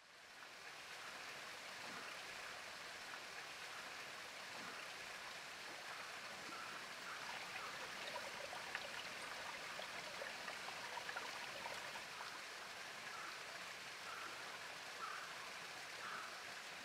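Faint, steady sound of shallow running water with small drip-like ticks, fading in over the first second.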